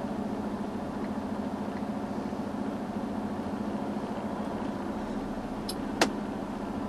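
Semi-truck diesel engine running steadily with a low, even drone. Two short clicks come close together near the end, the second louder.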